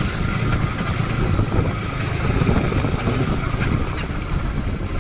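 Wind buffeting the microphone on a moving motorcycle, a steady low rumble with the engine running underneath.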